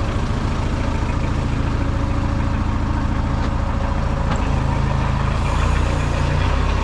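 An engine running steadily with a low hum, its note shifting about four and a half seconds in.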